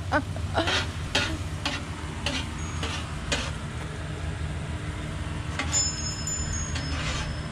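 A metal spatula scrapes and taps on a flat-top griddle while eggs sizzle, over a steady low hum. About two-thirds of the way in, metal tube wind chimes ring a few high notes.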